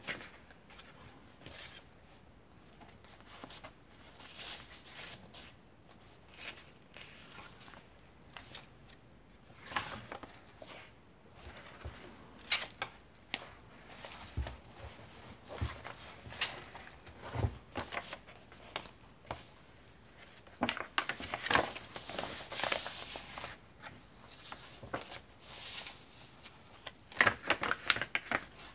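Vintage paper pages of a thick handmade junk journal being turned and handled: soft intermittent rustles and flaps with scattered crisp ticks, a few soft low thumps in the middle, and busier rustling about two-thirds through and again near the end.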